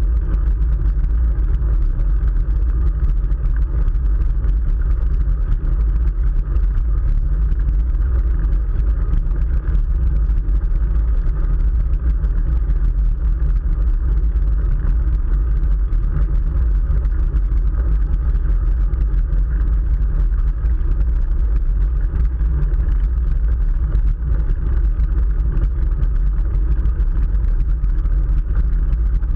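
Steady, loud wind rumble and road noise on the microphone of a camera riding along on a moving road bicycle.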